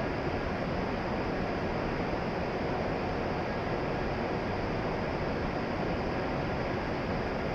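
Steady, even rushing noise on a Shinkansen platform beside a stationary E7 series train, with no distinct events.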